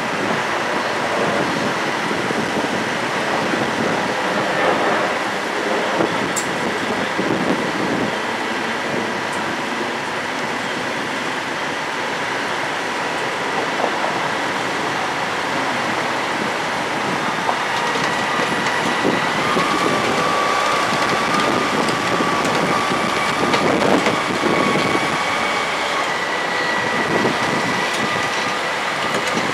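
Heavy piling machinery running steadily, a crawler crane and a hydraulic drilling rig, with metallic clanks and knocks throughout. A high whine comes in a little past halfway, steps up in pitch, then drops back near the end.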